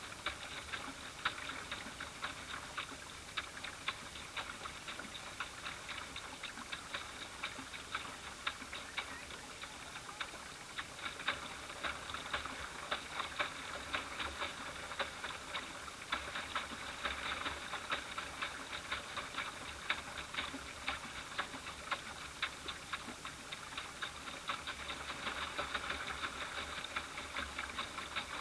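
Small water lapping against the boat's hull, heard through an action camera's waterproof housing as dense, irregular ticking and light patter.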